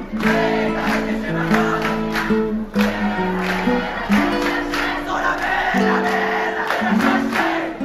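Music with a melody of held, plucked-string notes.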